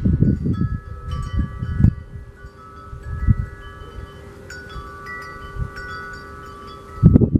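Wind chimes ringing, many long overlapping tones sounding one after another, over a low rumble that swells at the start and again near the end.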